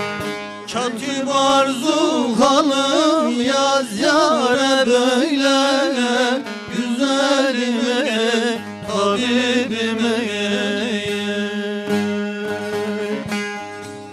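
Bağlama (long-necked Turkish saz) playing a folk tune, with a man's voice singing long, ornamented, wavering notes over it from about a second in.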